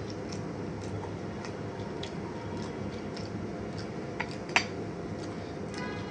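Eating sounds of crisp fuchka shells being bitten and chewed: scattered small cracks and clicks over a steady background noise, with a sharper crunch about four and a half seconds in.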